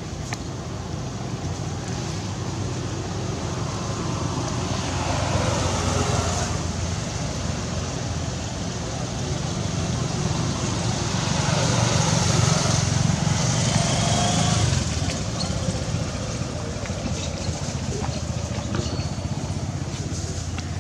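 Steady motor traffic noise, engines running as vehicles pass. It swells about five seconds in and again from about ten to fifteen seconds.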